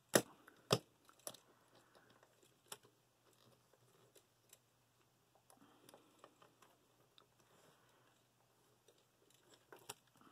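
Plastic clicks and light rubbing from the joints and panels of a War for Cybertron Springer Transformers figure being turned and folded by hand. There are two sharp clicks within the first second, then faint, scattered clicking and handling.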